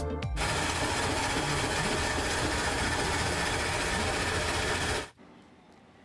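Electric block-ice shaver shaving ice into a cup: a steady grinding rasp that runs for about four and a half seconds and cuts off suddenly.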